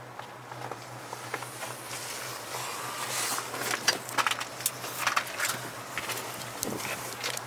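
Wind blowing over the microphone, growing stronger from about three seconds in, with many scattered sharp crunches and knocks, typical of footsteps in snow and handling.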